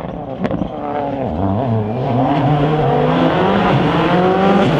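Rally car's engine at full throttle on a special stage, growing louder as it approaches. The engine note dips briefly about a second in, climbs, drops at a gear change about three seconds in, then climbs again.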